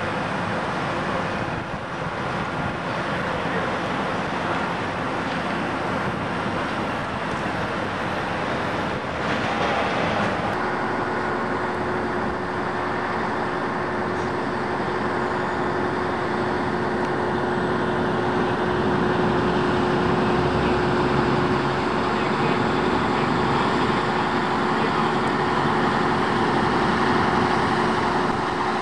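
Steady road traffic noise, with a steady hum joining about ten seconds in.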